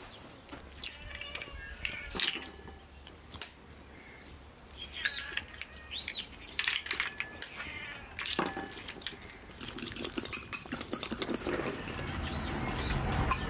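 Eggs tapped and cracked open over small ceramic bowls with a few sharp clicks. From about ten seconds in, a spoon beats the eggs in a bowl with rapid clinking of metal on ceramic that grows louder.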